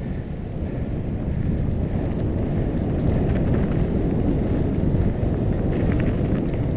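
Wind rushing over the camera microphone with the rumble of mountain-bike tyres on a dirt and grass track. It grows louder over the first few seconds as the bike picks up speed, with a few light clicks near the end.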